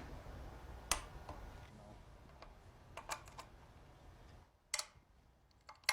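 Torque wrench clicking off as bolts are brought to spec: a handful of single sharp clicks, spaced unevenly over several seconds.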